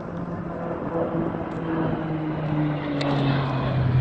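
Propeller and engine drone of a Bombardier Q400 twin turboprop airliner in low flight: a low hum that slowly falls in pitch and grows louder toward the end.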